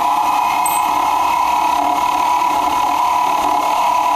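Spindle of a G0704 milling machine, fitted with a face mill, running steadily at speed with a steady whine.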